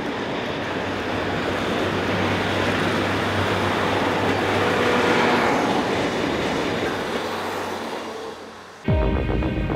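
Diesel train running past, a steady engine hum with rail noise that swells to a peak midway and fades away. Music cuts in abruptly near the end.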